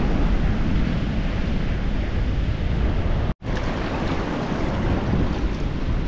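Ocean surf washing, with wind buffeting the microphone as a steady low rumble. The sound cuts out for a split second a little over halfway through.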